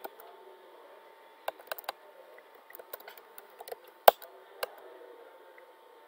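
Computer keyboard being typed on: scattered keystrokes in small clusters, with one sharper, louder key strike about four seconds in, over a faint steady background hum.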